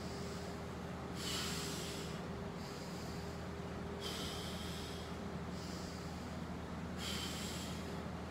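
A man breathing deeply and deliberately while holding a forearm plank: three audible breaths, each about a second long and about three seconds apart. A steady low hum runs underneath.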